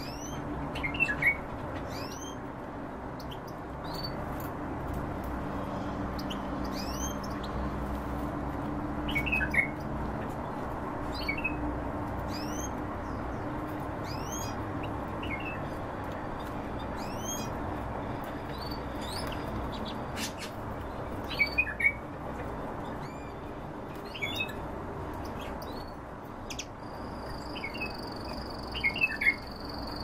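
Aviary finches chirping: short rising call notes every second or two, with louder bursts of chirps four times. Near the end a steady high tone joins in.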